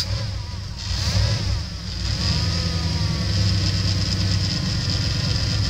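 A 1997 Dodge Ram 1500's 5.9-litre gasoline V8 running just after starting. Its pitch rises and falls briefly in the first couple of seconds, then it settles into a steady idle.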